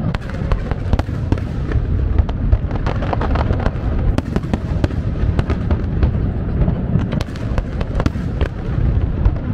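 A fireworks display going off in a dense, continuous barrage: many sharp bangs and crackles overlapping one after another, with heavy low booming underneath.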